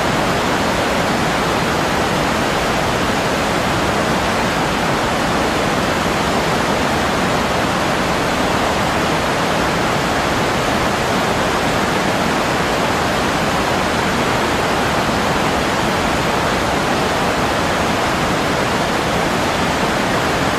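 Rushing water of river rapids and a waterfall, loud and steady throughout.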